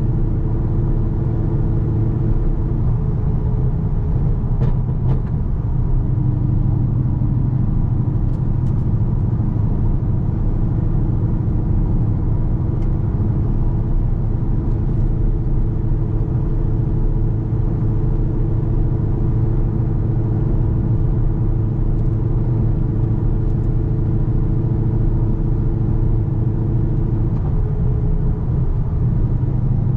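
Ford Mustang Boss 302's 5.0-litre V8 cruising in sixth gear at about 50 mph, a steady low drone through replacement aluminized-steel side pipes, heard from inside the car.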